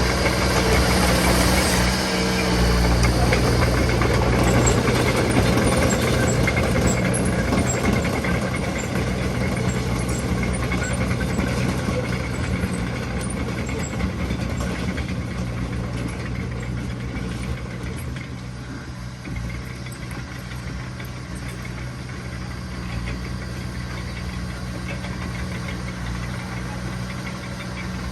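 Diesel engine of heavy earthmoving machinery running steadily. It is louder in the first half and settles lower after about fifteen seconds.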